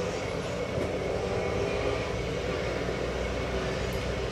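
Steady rumbling background noise with a faint low hum and no distinct events.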